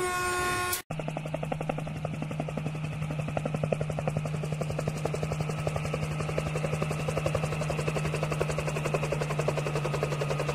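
A brief horn tone cut off abruptly just under a second in, then a diesel locomotive engine throbbing steadily, with a low hum and a fast, even pulse.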